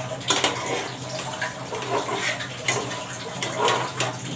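Spatula stirring and scraping through fish curry masala in a frying pan in repeated short strokes, with water added to the hot pan sizzling and bubbling.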